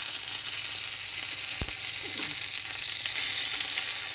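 Floured cod fillet frying in hot oil in a pan: a steady, crackling sizzle, with a single light knock about one and a half seconds in.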